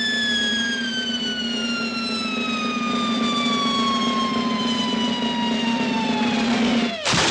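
Cartoon falling-bomb sound effect: a long whistle sliding slowly down in pitch, then a sudden noisy crash just before the end.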